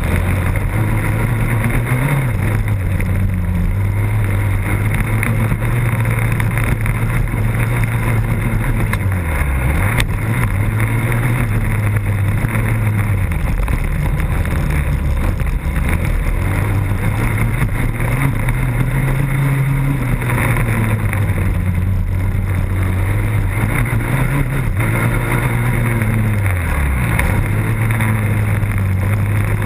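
Motocross bike engine running hard around a dirt track, heard from a camera mounted on the bike. Its pitch rises and falls, dropping sharply about ten seconds in and again near the end.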